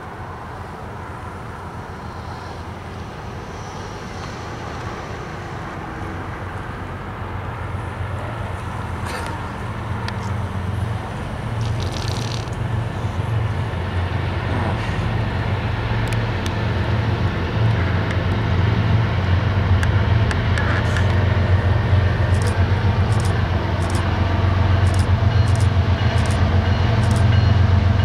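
CSX GE Evolution-series diesel locomotive hauling a loaded coal train, its engine's deep drone growing steadily louder as it approaches. A run of short, sharp clicks joins in over the last ten seconds.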